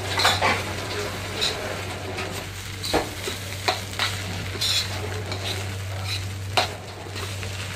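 Fried rice sizzling in a wok while a metal spoon stirs and turns it, the spoon clinking and scraping against the pan about once a second over a steady frying hiss.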